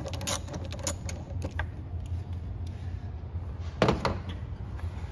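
Plastic engine air-intake parts being wiggled loose by hand off the throttle body: a few light clicks, then one louder knock about four seconds in, over a steady low hum.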